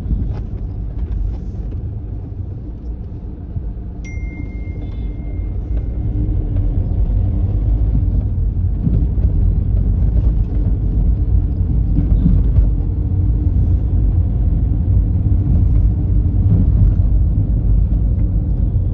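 Road noise heard from inside a moving car's cabin: a steady low rumble of engine and tyres that grows louder after about six seconds. A thin, high beep sounds about four seconds in and lasts roughly two seconds.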